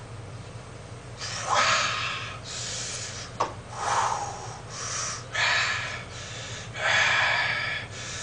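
A man breathing hard through a set of dumbbell flies, forceful breaths in and out about once a second, the strain of lifting. A single sharp click about halfway through.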